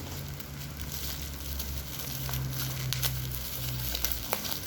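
Plastic packaging crinkling and crackling as it is handled while unpacking a soundbar box, with a few sharp ticks. A low steady hum runs underneath and stops near the end.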